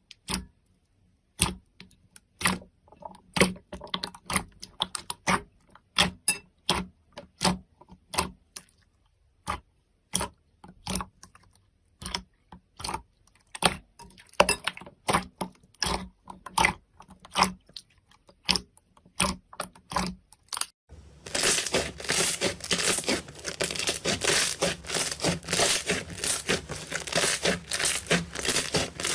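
Slime being pressed and squeezed by hand, giving sharp irregular crackling pops, several a second. About 21 seconds in, it turns into a dense, continuous crackle.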